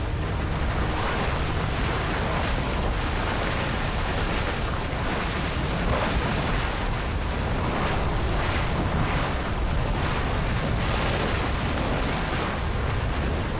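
Nyiragongo's lava lake churning: a loud, steady rushing noise that swells now and then.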